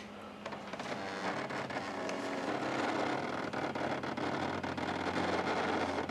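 Brother Intellifax 620 thermal fax machine printing a received page: its stepper motor advances the thermal paper one line at a time under the printhead, a steady fast ticking buzz.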